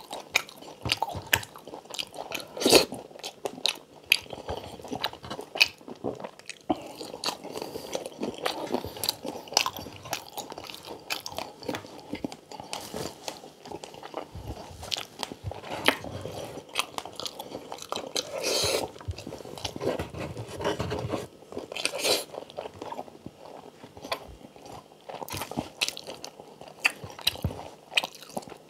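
Close-miked eating of crispy pata (deep-fried pork knuckle) with rice and vegetables: irregular crunches and wet chewing, with many short, sharp bites.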